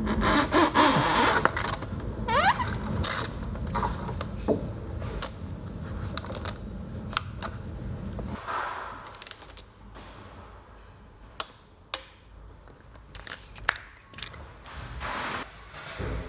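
Hand-tool work on car parts: about eight seconds of dense metallic rattling and scraping over a low rumble, then scattered sharp metallic clinks and taps.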